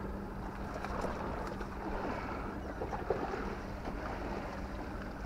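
Steady wind noise on the microphone over the sea washing against the rocks, with a few small clicks and knocks from handling a mesh keepnet.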